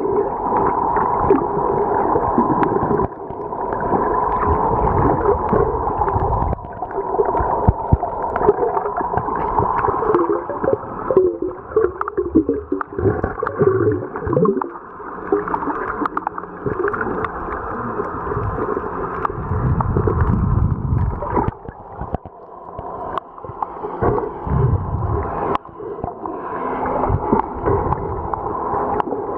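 Muffled underwater sound picked up by a submerged camera: water moving and gurgling, rising and falling in level, with no high tones.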